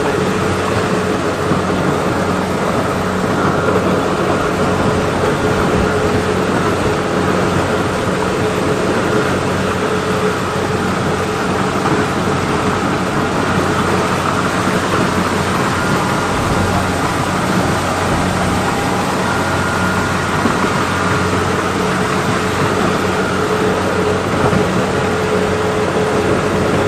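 A Kubota engine driving a corn-harvest machine runs steadily at constant speed: a steady hum under a dense rushing noise.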